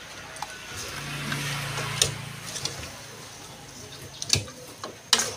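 Metal ladle stirring thick pork-rib curry in an aluminium pot: wet squelching of the sauce with a few knocks of the ladle against the pot, the sharpest near the end.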